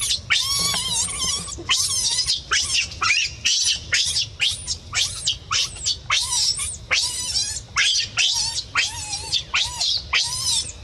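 Baby macaque screaming: a rapid run of high-pitched, wavering cries, one after another about twice a second.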